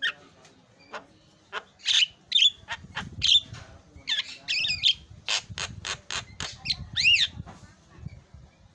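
Javan myna singing a varied, chattering song: rapid sharp clicks mixed with harsh rasping notes and an arching whistled note about seven seconds in.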